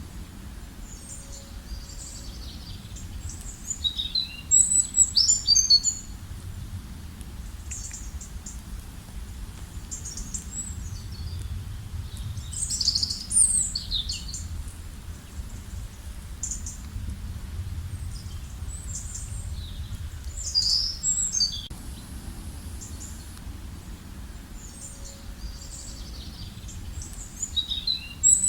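Songbirds singing in short bursts of quick high chirps and trills, a phrase roughly every eight seconds, over a steady low background noise.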